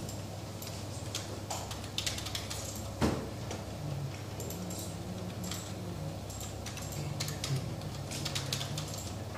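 Steady low hum of room machinery under scattered light clicks and taps, with one sharper knock about three seconds in.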